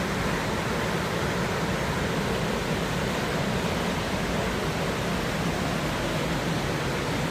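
Steady rush of falling water from a waterfall, an even hiss that does not change.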